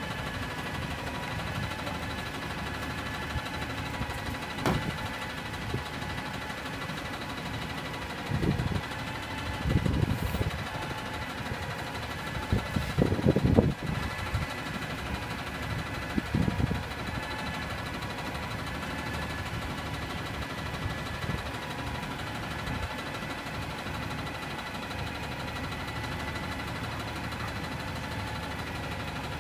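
Front-loader garbage truck with a Heil body idling steadily, its engine a constant hum with a whine of fixed tones. A few short low rumbles break in about a third of the way through, the loudest near the middle.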